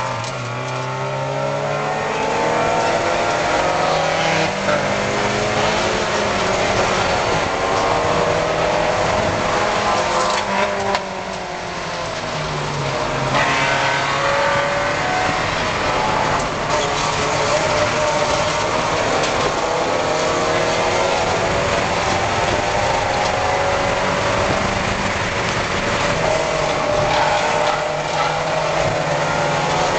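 Spec Miata race car's inline-four engine running hard, heard from inside the cabin over road and wind noise. The revs rise and fall through gear changes, with a brief lift about eleven seconds in before they climb again.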